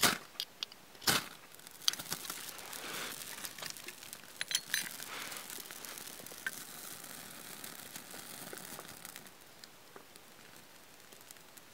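Campfire being lit: two sharp scraping strikes, one at the start and one about a second in. Then the green fibrous tinder crackles and hisses as it catches and burns, while twigs are handled and laid on it.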